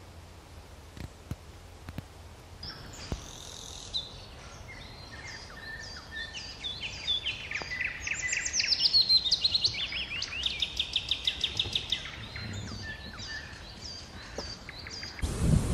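Songbird singing: a lively run of chirps and fast trills, some notes sliding downward, starting about three seconds in. A few faint clicks come before it, and a loud rush of noise cuts in near the end.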